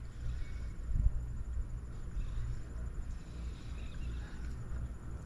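Wind buffeting the microphone in an uneven low rumble, with a single thump about a second in. Faint high chirping calls sound in the background.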